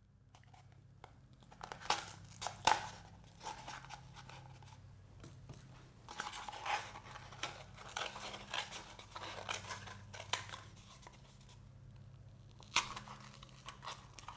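Small scissors snipping through cardboard toilet-paper and paper-towel tubes, with the crinkle and crunch of the cardboard as it is cut and handled. A few sharper snips stand out about two seconds in and again near the end.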